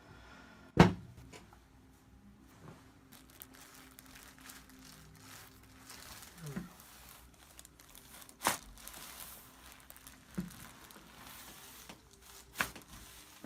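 A chiropractic drop table section drops with a single loud, sharp clack about a second in, as the thrust is given. Rustling and crinkling of the patient shifting on the table follow. Two more sharp knocks come later on.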